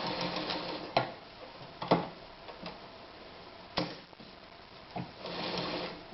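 A 1968 Anker Phoenix Excelsior ZZ 151 sewing machine stitches through layers of denim and stops about a second in. A few separate sharp clicks and knocks follow as the machine and fabric are handled.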